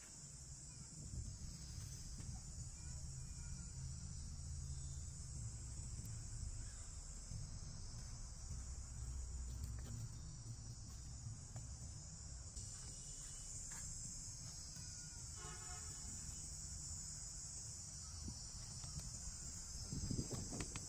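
Steady high-pitched chorus of insects, with a low rumble underneath and a short pitched call about two-thirds of the way through.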